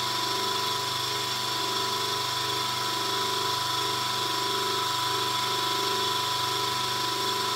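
Small electric vacuum pump running steadily to draw down a vacuum bag over a composite wing repair: an even hum with a slow, regular warble, the bag still being evacuated while the vacuum builds.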